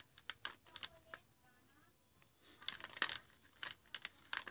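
Light, scattered clicks and clatter of oil pastel crayons being handled in their box as the red one is put down and a light blue one taken up, with a quick cluster of clicks about two and a half to three seconds in.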